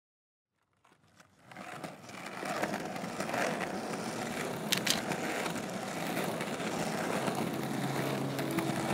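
Skateboard wheels rolling on concrete, a rough steady rumble that fades in over the first two seconds, with two sharp clicks close together about five seconds in.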